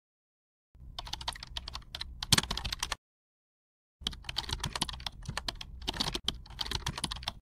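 Keyboard typing sound effect: quick, irregular key clicks in two runs, one of about two seconds and a longer one after a second's pause.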